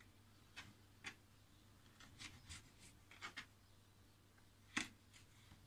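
Faint, scattered light clicks and taps of hands handling food and dishes at a kitchen counter, with one sharper tap shortly before the end, over near-silent room tone.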